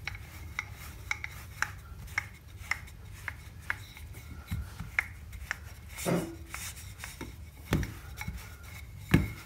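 Wooden rolling pin rolling out yeast dough on a stone countertop: a run of light clicks about twice a second, with a few heavier knocks in the second half.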